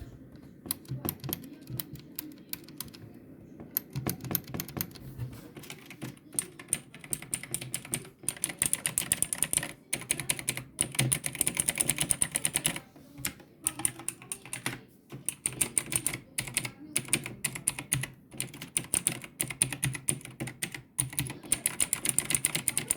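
Typing on a Defender Blitz GK-240L mechanical keyboard with clicky blue switches: runs of rapid keystroke clicks with short pauses, sparser in the first few seconds.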